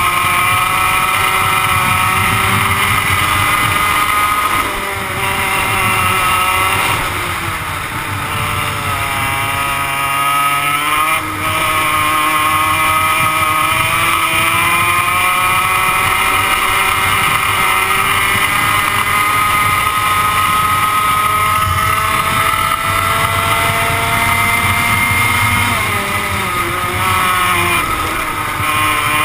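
100cc two-stroke kart engine running at racing revs, heard close up from on board the kart. The revs drop briefly about five seconds in, fall away from about seven to eleven seconds as it slows for a corner, then climb sharply again, and dip once more near the end.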